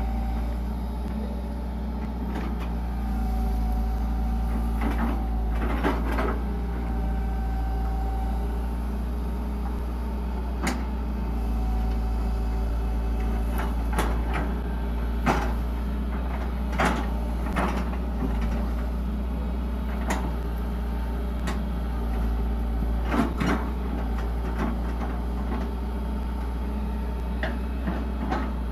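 Hitachi EX120 long-arm excavator's diesel engine running steadily under work, with irregular sharp metallic clanks and knocks as the bucket and boom work through banana trunks. A short whine from the hydraulics rises now and then.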